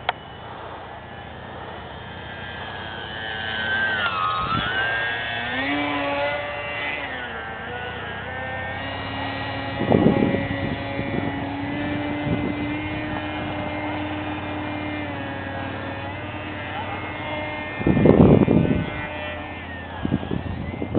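Electric R/C aerobatic airplane's Hacker A20-26M brushless outrunner motor and propeller whining overhead, the pitch sweeping down and back up several seconds in, then holding steady. Two louder bursts of rushing noise come about halfway and near the end.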